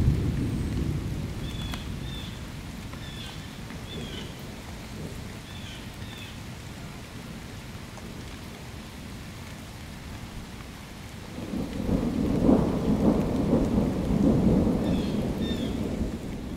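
Thunder over steady rain: a rumble dies away over the first couple of seconds, then a second long rolling rumble builds about two-thirds of the way through and lasts several seconds. Faint high chirps in pairs repeat every second or two, dropping out in the middle and returning near the end.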